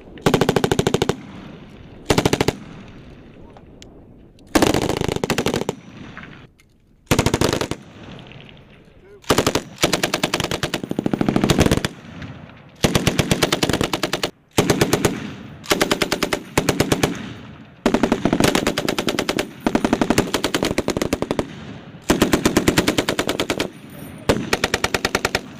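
Belt-fed machine guns firing bursts on a range: about a dozen bursts of rapid automatic fire, from short to a couple of seconds long, following one another with brief pauses.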